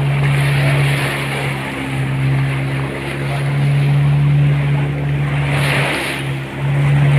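Fishing boat's engine running steadily under way, a constant drone, with water and wind rushing past the hull.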